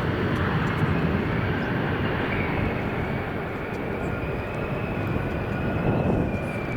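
Jet engines of an arriving Embraer 190 airliner running, a steady rumble with a thin turbine whine that comes in about two seconds in and holds, over wind on the microphone.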